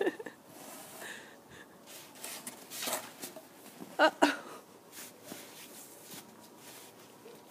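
Quiet scuffing and rustling, with a short voice sound about four seconds in and a breathy hiss just before it.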